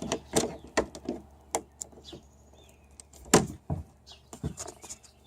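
Irregular knocks, clicks and clunks of handling things in a small boat, with one louder thump about three and a half seconds in, over a faint steady low hum.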